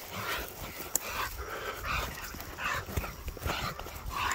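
Hog dogs giving repeated short barks while baying a wild hog.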